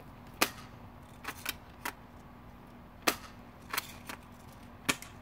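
Spring-powered pump-action airsoft shotgun firing three sharp, snapping shots, about half a second, three seconds and five seconds in, with lighter clicks in between.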